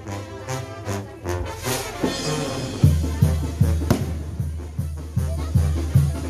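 Mexican banda (brass band) playing: brass horns over a steady low drum beat of about three thumps a second, which gets heavier about halfway through.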